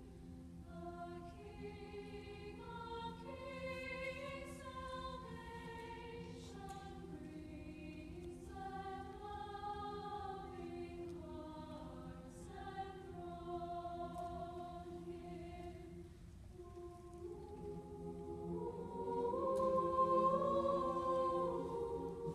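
Mixed choir singing in parts, heard from the audience seats of an auditorium. The choir swells to its loudest passage about three-quarters of the way through, then eases back.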